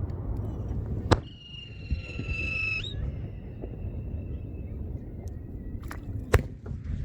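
Two sharp firework bangs, about a second in and near the end, from No. 5 aerial shells bursting, over a steady low rumble. After the first bang a high steady whistle sounds for about a second and a half, rising briefly just before it stops.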